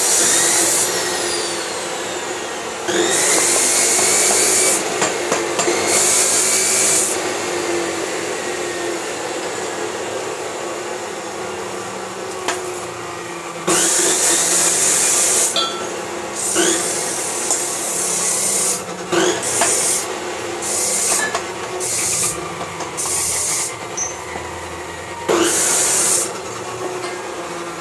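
Handheld angle grinder with a cutting disc running and cutting into the steel casing of a motorcycle muffler in about a dozen bursts of one to two seconds. Between bursts the motor runs freely, its whine climbing back up after each cut. The muffler is being cut open so its baffles can be rebuilt.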